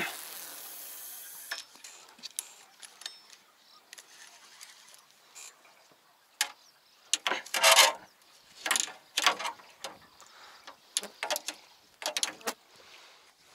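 Spinning reel on a feeder rod being cranked in short spells, giving a mechanical clicking whirr. A steady hiss fills the first second and a half.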